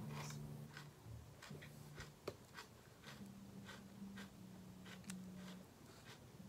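Faint crunching of raw salad being chewed: short, soft crackles about two a second, one a little sharper just past two seconds in.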